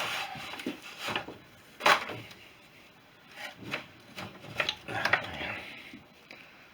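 Spanner clinking and scraping against crankcase bolts as they are worked loose, a string of sharp metallic knocks with the loudest about two seconds in.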